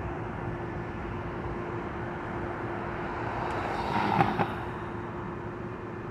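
Steady outdoor vehicle noise with a constant hum. Just before four seconds in, the sound swells briefly, and two sharp knocks come close together.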